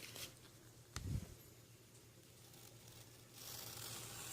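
Package wrapping being handled: a soft bump about a second in, then faint rustling of the wrapping starting about three and a half seconds in.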